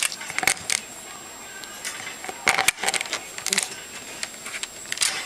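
Metal bars of a wire puppy pen clinking and rattling as a chocolate Labrador puppy paws and pushes against them: a string of sharp metallic clicks, loudest about two and a half seconds in.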